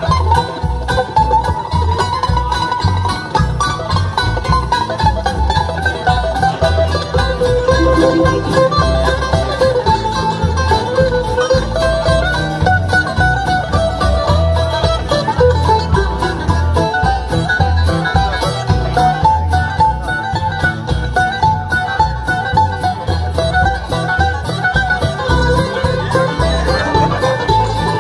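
Live band playing an instrumental break in a bluegrass-country style: banjo picking to the fore over guitars, with drums keeping a steady beat.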